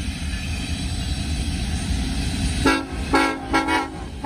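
Norfolk Southern freight locomotive's air horn sounding four short, loud blasts in quick succession, starting about two-thirds of the way in, over the steady low rumble of the train.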